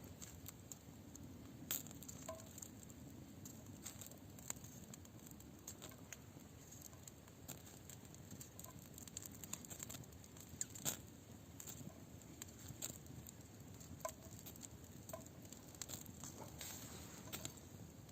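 Campfire crackling faintly: scattered sharp pops and clicks over a low, steady rumble, one louder pop near the middle.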